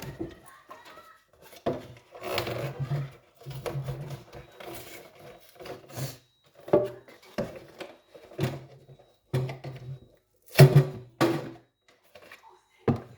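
Kitchen things being handled: a string of knocks, thunks and short rasping, rubbing stretches, the loudest knocks coming about ten and eleven seconds in.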